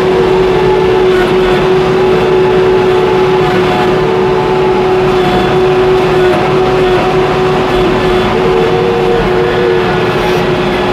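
Case W20E wheel loader's diesel engine running steadily under work, with a constant whine over the engine noise, heard from the operator's cab.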